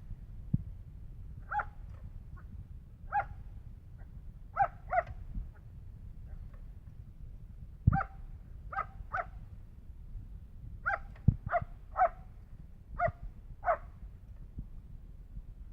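A dog giving about a dozen short, high-pitched barks and yips at irregular spacing, some in quick pairs. A few sharp low thumps come among them, the loudest about 8 and 11 seconds in.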